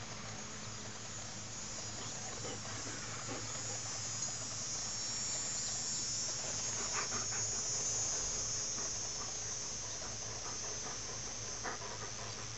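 Steady high-pitched buzz of insects in the grass, swelling in the middle, with a few faint short clicks.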